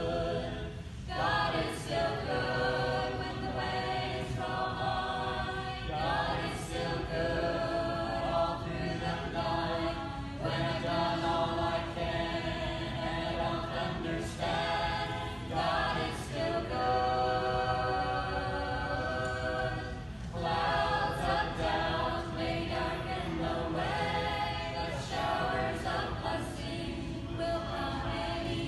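A small group of voices singing a gospel song together in phrases, with short breaks between lines.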